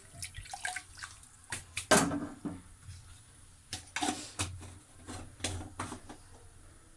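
Scattered clicks, knocks and light clinks of kitchen utensils being handled at the stove, over a faint background hiss; the loudest knock comes about two seconds in.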